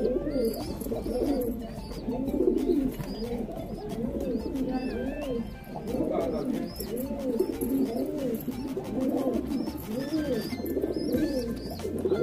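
Several domestic pigeons cooing over and over in a loft, their rising-and-falling coos overlapping, with scattered faint clicks.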